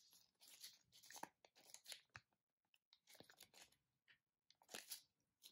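Folded paper instruction leaflet from a Kinder Joy toy capsule being unfolded and handled, crinkling in a series of short rustling bursts, with a few sharp clicks in between.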